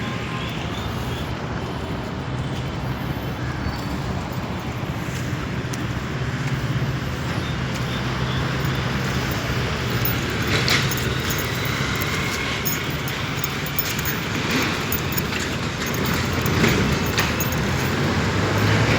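Steady vehicle running noise with a low hum, broken by a few brief sharp sounds in the second half.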